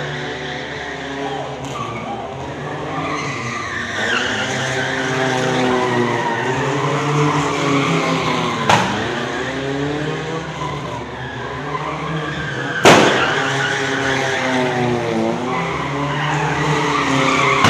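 Two sedans drifting, their engines revving up and down over and over while the tyres squeal and skid. Two sharp bangs, about four seconds apart; the second is the loudest moment.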